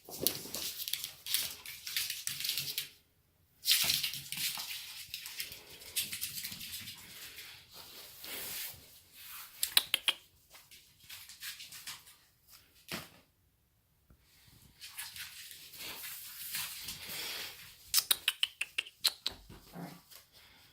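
Long-haired chihuahua puppy moving about and handling its toys, giving off bouts of scratchy, rustling noise with short pauses. A quick run of sharp clicks comes near the end.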